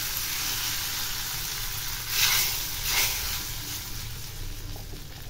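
Hot mustard-oil tempering (tadka) sizzling on cooked chana dal as a ladle stirs it in: a steady hiss that slowly dies down, with two louder swells about two and three seconds in.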